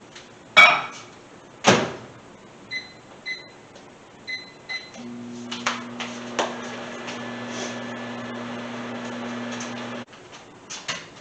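Microwave oven: two sharp clacks as the door is handled, a few short keypad beeps, then the oven's steady hum for about five seconds before it cuts off suddenly.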